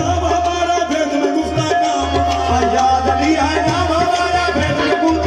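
Devotional music with hand drums over a steady low drone.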